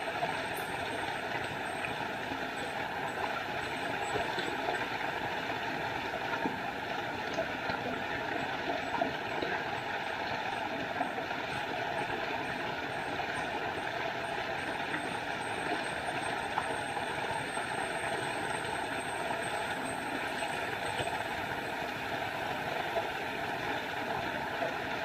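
Small forest waterfall: a steady, unbroken rush of falling water.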